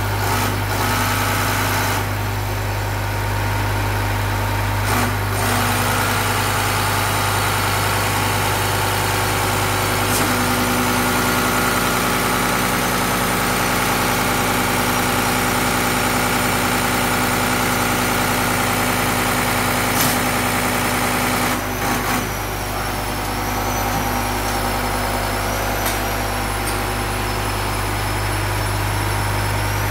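Diesel injection pump test bench running steadily, its drive motor turning an inline injection pump that is pumping fuel through the test nozzles, with a steady low hum. A few short knocks come through, about five seconds in and again near twenty and twenty-two seconds.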